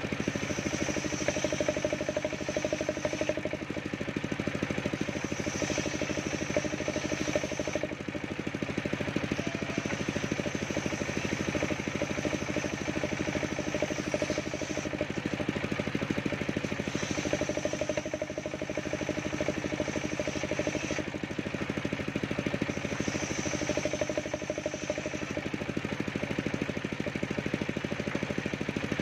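Circular saw bench running steadily while boards of waru wood are fed through the blade, with a high cutting whine that comes and goes in several stretches of a few seconds.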